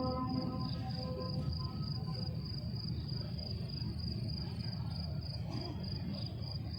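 Pause between phrases of the adhan: the muezzin's held note dies away in the hall's reverberation at the start, leaving a low steady murmur of ambience. Throughout, a thin high-pitched chirp pulses at an even rate of a few times a second.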